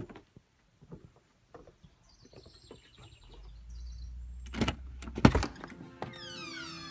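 Light footsteps on a wooden deck, then two loud clunks about a second apart from the front door's latch and lock as the door is opened. Music starts near the end.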